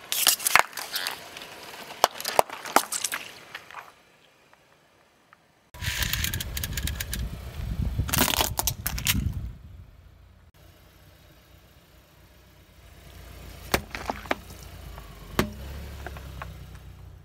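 Objects crushed under a slowly rolling car tyre. First a run of sharp plastic cracks and crunches as a pack of yogurt pots bursts; after a short pause comes the low rumble of the car rolling in, with a cluster of cracking as a plastic toy breaks; later a few single sharp snaps over the car's rumble.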